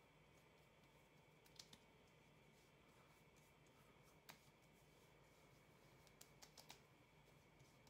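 Near silence, broken by a few faint, light taps of fingertips patting day cream into facial skin: a pair early, one in the middle, and a quick cluster of four near the end.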